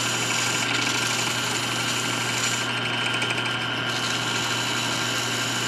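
Lathe motor running slowly with a steady hum and whine, while sandpaper held against the spinning wood-inlay ring adds a light hiss that thins for a moment midway.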